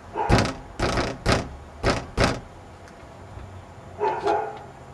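Knuckles knocking on a wooden door five times: three knocks, a short pause, then two more.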